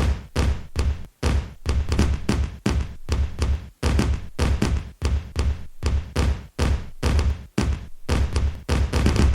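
Firecrackers exploding one after another in a rapid string, about two to three sharp bangs a second, each with a short rumbling tail.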